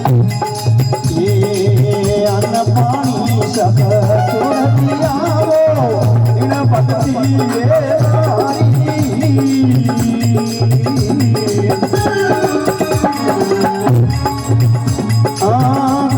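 Instrumental interlude of a Rajasthani devotional folk song (bhajan): a gliding melody line over a steady percussion rhythm with shakers.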